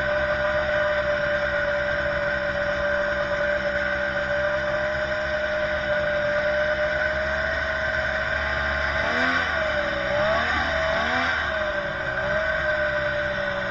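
Snowmobile engine heard from on board the sled, running at a steady speed, then its revs rise and fall several times about nine to twelve seconds in before settling a little lower.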